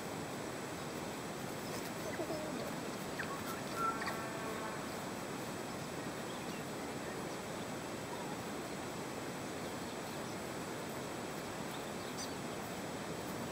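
Steady outdoor background noise with a few brief bird calls and chirps about two to four seconds in.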